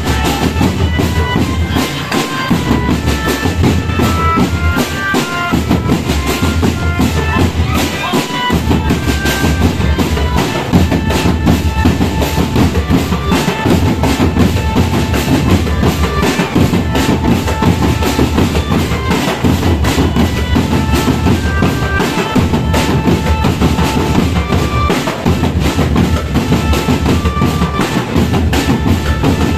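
Marching drum band playing, with bass drums and snare drums beating continuously under a melody of short high notes.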